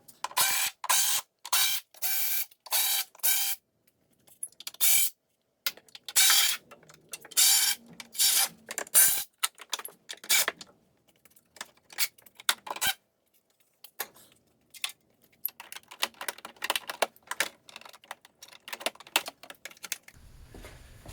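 Short repeated bursts of mechanical clicking and rattling as the underbody panel's fasteners are undone and the panel is worked loose. The bursts come in quick runs with short pauses between them.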